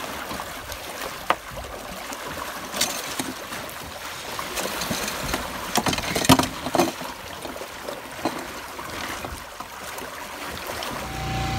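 Water rushing past the stern of a trimaran under way, with a few sharp knocks and clicks from handling fishing tackle, most around the middle. Near the end a steady outboard motor hum comes in.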